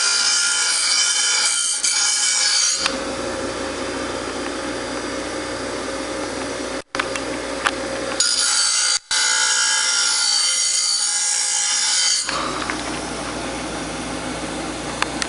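Grinder motor running with a steady hum while a steel lawnmower blade is pressed against the wheel twice, each pass a loud, hissing grind lasting a few seconds: the blade's cutting edge being sharpened.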